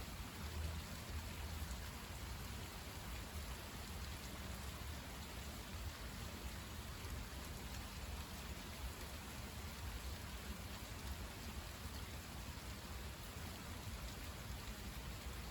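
Steady rain falling during a thunderstorm, an even hiss with a steady low rumble underneath.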